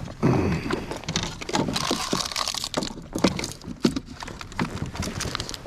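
Irregular rustling with many sharp clicks and knocks: things being handled close to the microphone.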